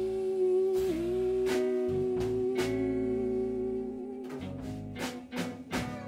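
Live band playing an instrumental passage: a long held melody note that bends in pitch about a second in, over guitar and drum hits that come more thickly near the end.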